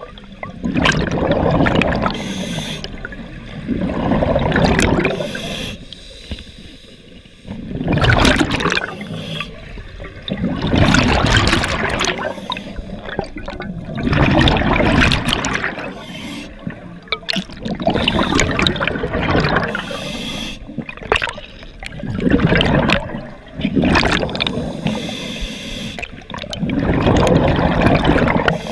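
Scuba diver breathing through a regulator underwater: hissing inhalations through the demand valve alternating with bubbling exhalations, in a slow steady rhythm.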